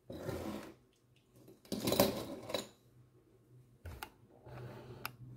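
Small objects being handled on a wooden tabletop: scraping and clattering, loudest about two seconds in, with a few sharp clicks near the end.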